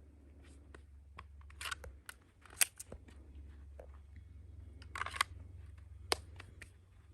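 A few sharp clicks and short rustling scrapes, the sharpest about two and a half seconds and six seconds in, over a low steady hum.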